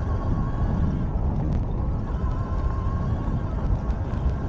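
Electric bike at speed on a rough dirt trail, about 30 to 35 mph: a steady rumble of wind and tyres on the rider's microphone, with a faint steady whine above it.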